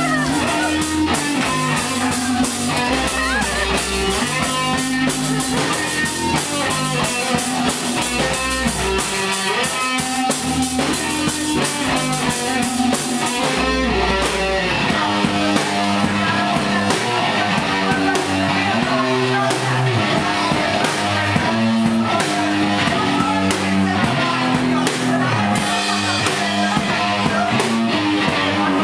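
A live hardcore punk/metal band playing loud: guitars and low bass notes over a drum kit.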